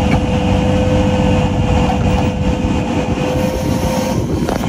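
Flatbed tow truck's engine running and its winch pulling a disabled SUV up the tilted bed, with a steady whine that stops about four seconds in.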